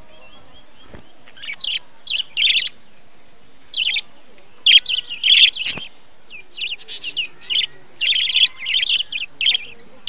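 Budgerigars chirping and chattering in short bursts, sparse at first and nearly continuous in the second half, with two sharp clicks.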